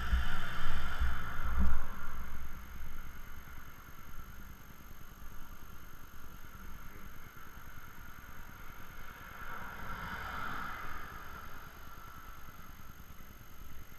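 Road traffic going by: a passing vehicle's noise swells and fades about ten seconds in. In the first two seconds a low buffeting rumble hits the microphone.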